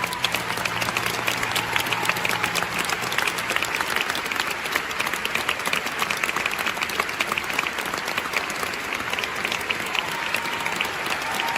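Audience applauding steadily after the music ends, with the music's last held note fading out in the first few seconds.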